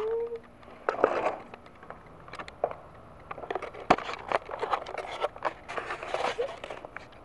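Handling noise from a camera phone being moved about: rustling and scraping with scattered sharp clicks and knocks. There is a short rising vocal sound at the very start.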